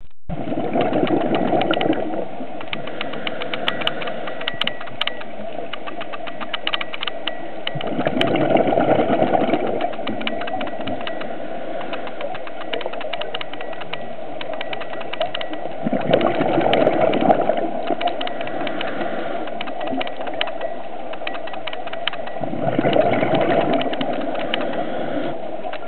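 Scuba breathing heard underwater through a camera housing: about every seven seconds a two-second swell as an exhalation bubbles out of the regulator, four times, over a steady crackling between breaths.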